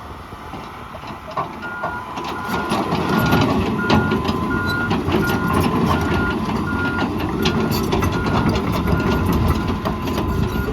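A John Deere 210G LC excavator's travel alarm beeps about twice a second from about two seconds in as the machine travels. Its diesel engine runs louder under load, with clanking from the steel tracks.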